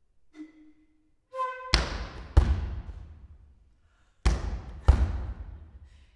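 Flute and percussion from a flute-and-marimba duo: two short flute notes, then two pairs of loud, sharp percussive strikes, each strike ringing away over about a second and a half.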